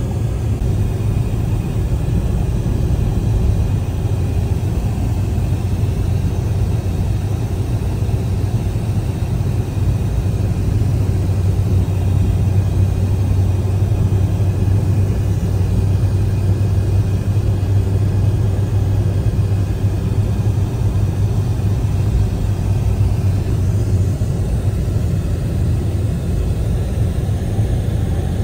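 Car driving at highway speed, heard from inside the cabin: a steady low rumble of tyres on the road and engine.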